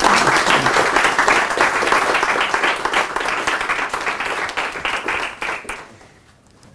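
Audience applauding. The applause starts all at once and dies away about six seconds in.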